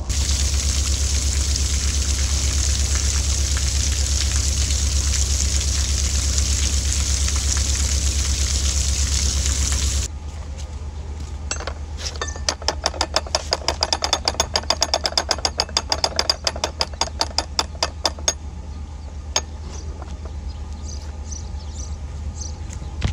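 Water gushing through the open paddles of a canal lock into the chamber, over the steady low hum of a narrowboat's diesel engine running in gear. After a sudden change about ten seconds in, a lock paddle's ratchet clicks rapidly and evenly for about six seconds as the paddle is wound with a windlass, the engine still humming underneath.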